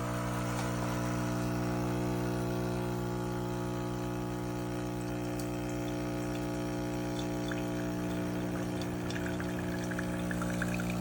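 KOTLIE 5-in-1 multicapsule espresso machine's pump running with a steady hum while it brews, with coffee pouring. A light spattering comes in near the end.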